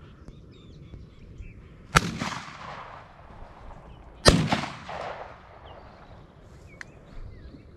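Two 12-gauge shotgun shots about two seconds apart, each a sharp bang followed by a rolling echo that fades over a second or so.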